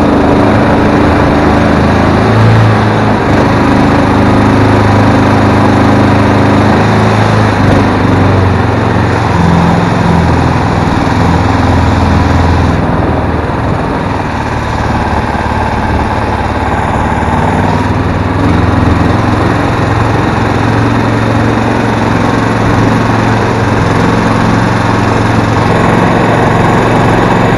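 Small air-cooled gas engine of a mud motor running under way, pushing an aluminum jon boat through shallow marsh water. It runs steadily, easing off slightly about halfway through before picking up again.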